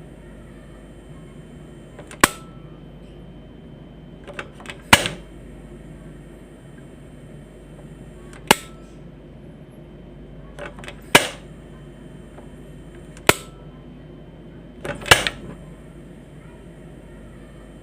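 Quantum gas stove's burner knob being turned and its igniter snapping as the burner is lit and shut off again and again: about six sharp clicks two to three seconds apart, some led by smaller knob clicks. A faint high hiss runs between some of the clicks.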